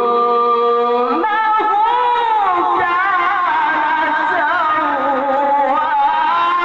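A male qari's voice reciting the Quran in melodic tilawah style, singing long held notes with wavering, ornamented turns. A new phrase begins about a second in.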